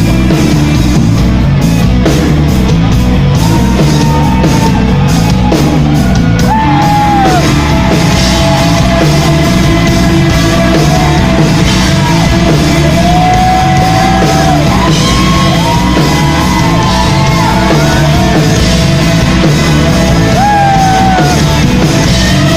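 Loud rock music with a voice singing and yelling over it.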